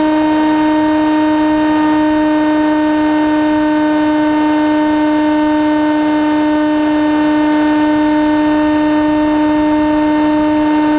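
Electric motor and propeller of a radio-controlled FPV model aircraft, recorded from on board. It gives a loud, steady whine that holds one pitch at a constant throttle.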